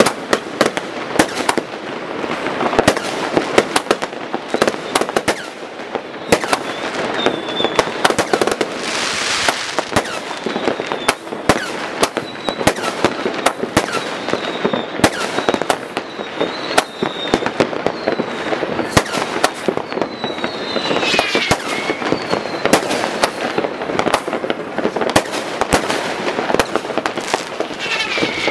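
Many fireworks going off across a town: a dense, unbroken stream of bangs and crackles from rockets and firecrackers. Short high whistles from whistling fireworks come now and then, and one whistle glides down in pitch about three-quarters of the way in.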